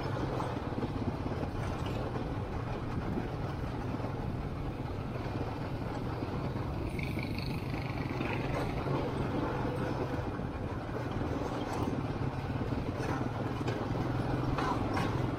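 ATV engine running steadily while being ridden.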